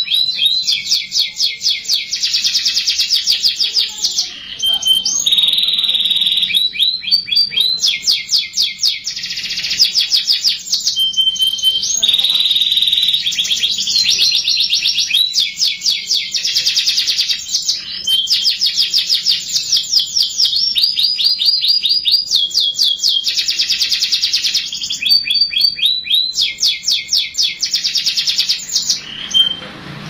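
Domestic canary singing a long, nearly unbroken song of rapid trills and rolls, switching to a new trill every second or two.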